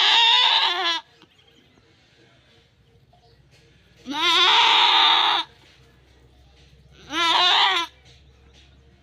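A goat bleating three times: a long wavering bleat at the start, another about four seconds in, and a shorter one near the end.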